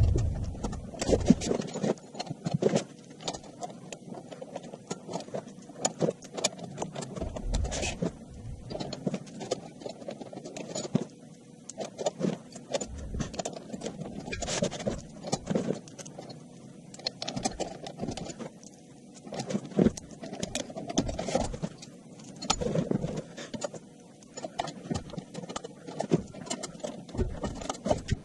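Sped-up workshop assembly sounds: a dense, irregular jumble of clicks, knocks and clatter from tools and metal parts being handled.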